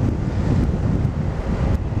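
Wind buffeting the microphone of a riding scooter, a steady low rumble, with the scooter's engine and tyre noise underneath.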